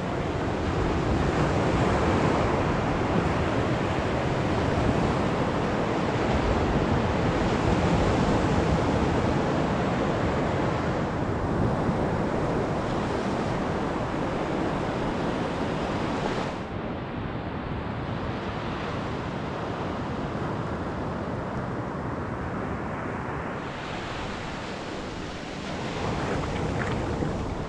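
Waves breaking and washing up a flat sandy beach in a steady rush of surf.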